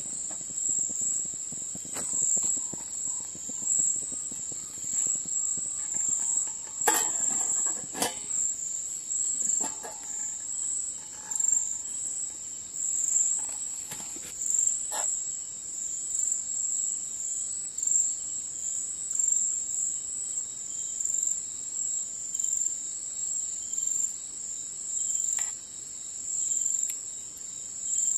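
Crickets calling in a continuous high-pitched trill, with a few light clicks and knocks about a quarter of the way through and again later.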